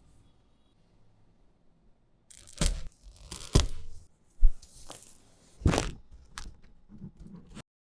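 Crisp snack food being broken and crunched: after about two seconds of quiet, about six sharp cracks come at uneven intervals, with rustling between them.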